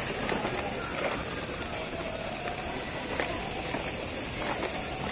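Cicadas singing in the park trees: a loud, steady high-pitched chorus that does not let up, with faint crowd chatter underneath.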